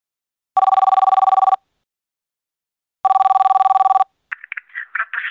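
Telephone ringing twice: two trilling rings about a second long each, roughly two and a half seconds apart. A voice comes on the line near the end.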